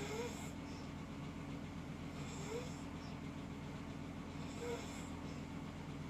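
Someone asleep and snoring: three short breaths about two seconds apart, each with a brief rising whistle, over a steady low hum.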